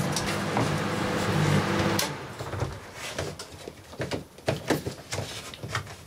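Panasonic microwave oven running with its steady transformer hum, switched off about two seconds in with a sharp click. Scattered irregular clicks and crackles follow from the burning bulbs and plastic still flaming inside.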